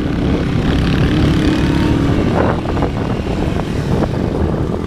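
Motorcycle engine running steadily on a climb, with a low rumble of wind and rough-ground noise on the microphone.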